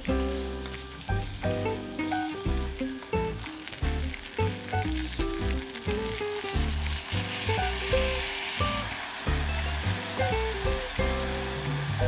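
Soaked rice sizzling as it is stirred in butter in a hot stainless steel pot. Background music with a melodic bass line plays throughout.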